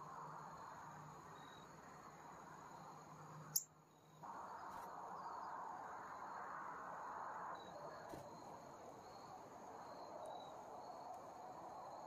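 Steady chirring of crickets, with one short, sharp high chip about three and a half seconds in.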